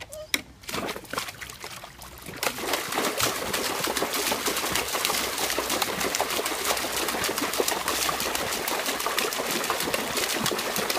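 A dog splashing in a plastic tub of water, pawing and churning it hard: a few scattered splashes at first, then from about two and a half seconds in a steady, continuous thrashing of water.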